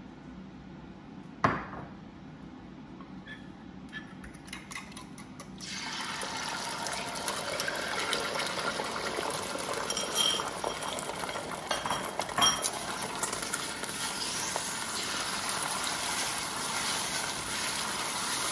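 Beaten eggs hit hot oil in a stainless steel pot about six seconds in and sizzle steadily, with a couple of sharp clinks of the bowl and spatula against the pot. Before that, one sharp knock about a second and a half in.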